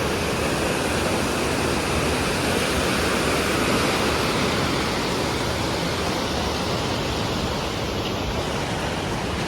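Swollen floodwater rushing steadily, an even wash of water noise from a river in spate.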